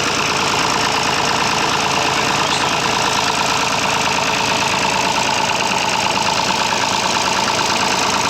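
Massey Ferguson 35's three-cylinder diesel engine ticking over at a steady idle, a tractor its owner describes as misfiring.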